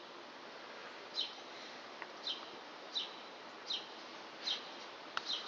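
A small bird chirping repeatedly: about six short, high chirps, each sliding downward, roughly one a second, over a faint steady hiss.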